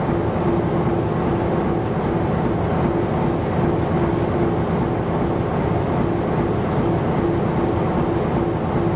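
Ship's engine running steadily: a low rumble with a continuous hum that wavers slightly in strength.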